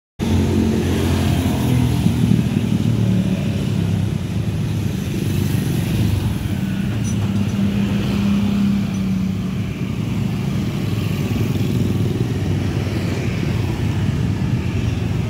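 Motorcycle engines running steadily at low speed in slow, dense street traffic, with a continuous low drone throughout.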